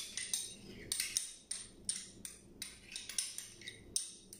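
Metal spoon tapping and scraping against a small cup and the rim of a plastic food container while scooping out oyster sauce: about a dozen sharp clicks, roughly three a second.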